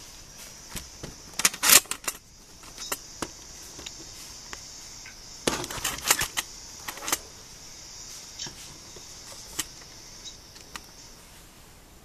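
Handling noise from a camera being moved and set down on a wooden dresser: a run of sharp clicks and knocks, two clusters of them about a second and a half in and again around five to seven seconds, over a steady high hiss that stops near the end.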